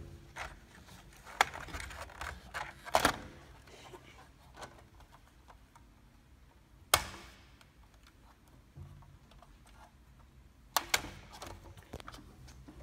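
Scattered plastic clicks and knocks as the doors and bonnet of a Bruder toy Land Rover Defender are worked open and shut. The sharpest click comes about seven seconds in, and a quick run of clicks follows near the end.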